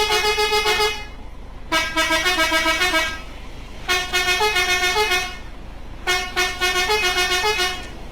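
Vehicle air horn sounding a short, rapidly pulsing phrase of stepping notes, repeated about every two seconds. One phrase ends about a second in, and three more follow.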